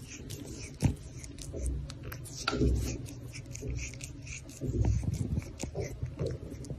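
An Asian leopard cat licking and mouthing fingers: a run of small wet clicks and scratchy rubbing, with low thumps from the hand and fur close to the microphone, the sharpest just under a second in.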